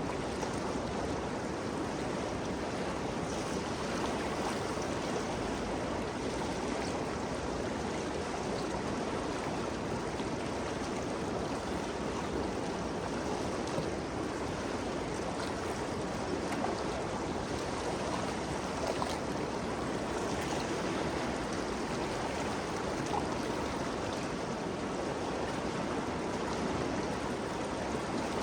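The Ganges River flowing: a steady rush of moving water with small splashes throughout.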